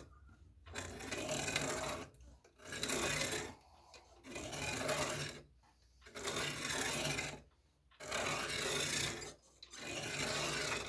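Hand deburring tool scraping around the cut edge of a metal tube to take off the burr, in six even strokes about a second each with short pauses between.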